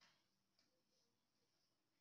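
Near silence: faint room tone with a soft click at the start and another about half a second later.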